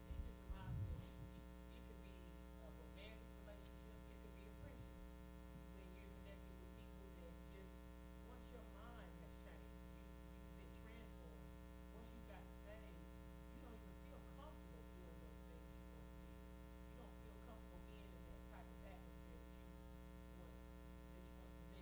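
Near silence: a steady electrical mains hum from the sound system, with a woman's voice faintly heard speaking off-microphone.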